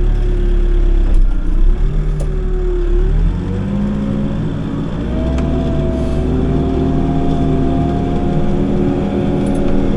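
Backhoe's diesel engine running under hydraulic load while digging. About three seconds in, the revs climb and then hold steady at the higher pitch.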